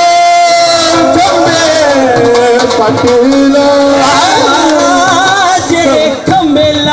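Amplified male voice singing a drawn-out qawwali melody in long, wavering held notes.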